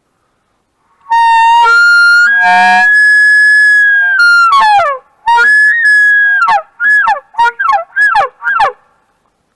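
Hunter's tube call blown to imitate a Manchurian wapiti (izubr) bull's rut bugle: a long high whistling note held for about three seconds, a second shorter held note, then a run of short falling notes.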